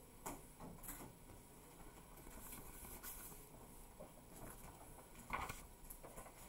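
Faint, scattered clicks and taps of a TI-84 Plus CE graphing calculator's keys being pressed and the calculator handled, with one louder knock about five seconds in.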